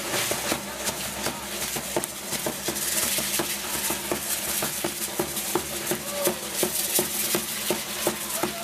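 A large drum beating and dancers' hand rattles shaking in a quick, steady rhythm of sharp strikes, the percussion of a costumed street dance troupe.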